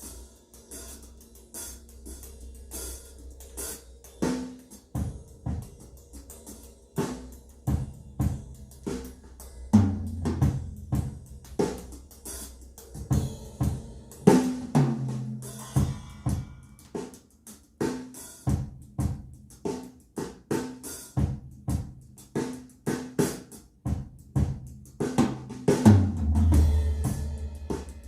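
Recorded drum kit played back through B&W 802D3 floor-standing loudspeakers: hi-hat and cymbals at first, then busy snare, bass drum and low tom hits, heaviest about ten seconds in and again near the end.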